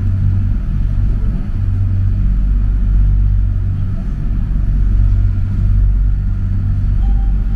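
Mitsubishi Crystal Mover C810A rubber-tyred light rail car running along its guideway, heard from on board as a steady low rumble.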